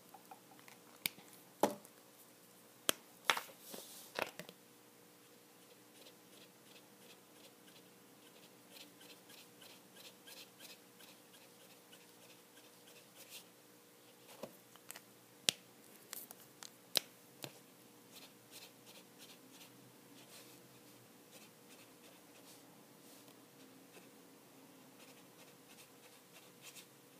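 Faint rapid scratching of a Copic Sketch marker's nib stroking back and forth on paper. Several sharp clicks and taps come in the first few seconds, and two more around the middle.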